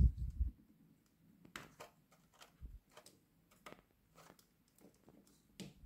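Plastic action figure being handled and posed: a low bump in the first half second, then faint scattered clicks and taps of its joints and hands.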